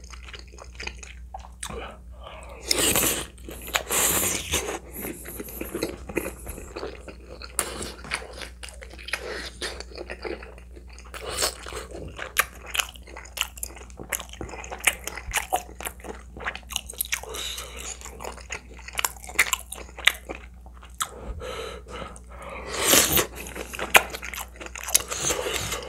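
Close-miked chewing and biting of spicy tteokbokki (rice cakes and fish cake in sauce), with a steady run of small mouth clicks. There are two louder stretches, around three to four seconds in and again near the end.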